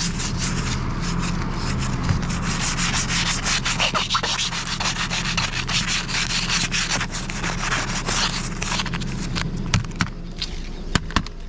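Stiff plastic document sleeve scraped back and forth across an iced-over car windshield, a continuous rasping scrape made of many quick strokes as the ice is shaved off the glass. A couple of sharp clicks stand out near the end.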